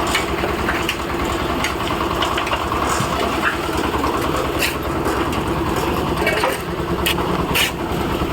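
Engine of a concrete mixer running steadily during road concrete casting, with scattered sharp clacks over it.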